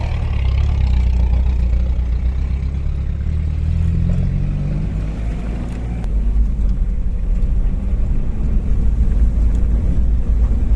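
Strong wind buffeting the microphone, a heavy low rumble that turns choppy and gusty about six seconds in.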